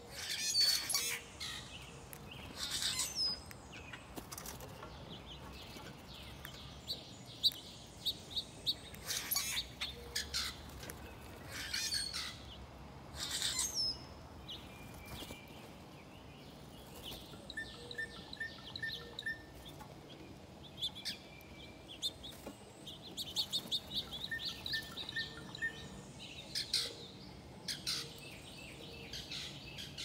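Wild birds chirping and calling at a feeder: many short, sharp chirps scattered throughout, with several rapid trilled runs of notes.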